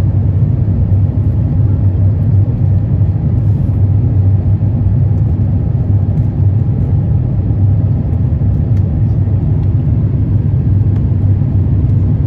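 Steady low drone of an Airbus A350-900 in flight, heard inside the cabin: engine and airflow noise during the climb after takeoff, the Rolls-Royce Trent XWB engines under power.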